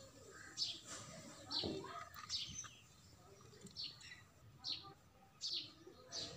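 A small bird chirping repeatedly in the background: short, high, downward chirps about once a second.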